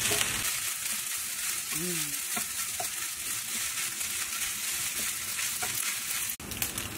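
Kimchi fried rice with pork mince and egg sizzling in a frying pan, a wooden spatula stirring and turning it with a few faint scrapes. The sizzle is a steady hiss that drops out briefly near the end.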